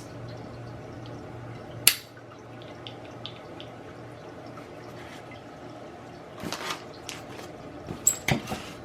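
Pistol crossbow being handled during assembly: one sharp plastic-and-metal click about two seconds in, faint small clicks and rustling, then a quick cluster of clicks near the end.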